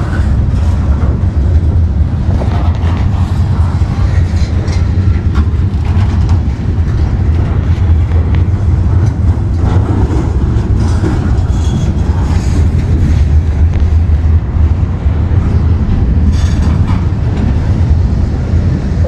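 CSX freight train of open-top cars rolling past close by: a steady low rumble of wheels on rail, with scattered clicks and knocks as the wheels cross rail joints.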